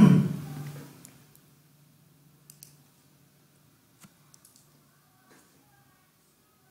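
A few faint computer mouse clicks, a pair about two and a half seconds in and a few more around four to five seconds in, over a faint low hum. A short loud burst at the very start fades within a second.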